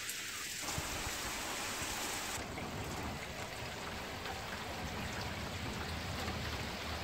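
Rain falling steadily on pavement and grass, an even hiss. The hiss changes abruptly about two and a half seconds in.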